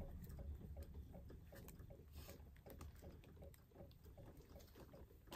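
Near silence with faint rustling and small scattered clicks from a plush toy being handled.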